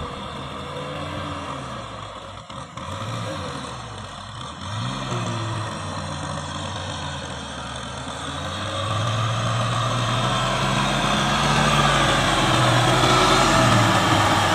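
Kubota M6040SU tractor's diesel engine running while plowing, its pitch wavering as the load changes and getting louder from about two-thirds of the way through.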